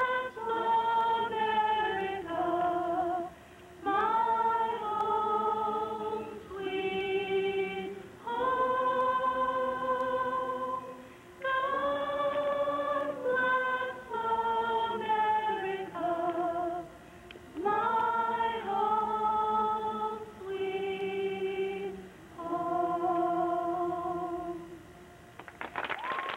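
Voices singing in harmony as a choir, slow held chords in phrases a second or two long with short breaks between them.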